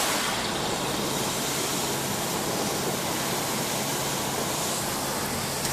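Steady rushing hiss of a car driving through flood water, with water spraying off the tyres, and a faint low hum from the car underneath.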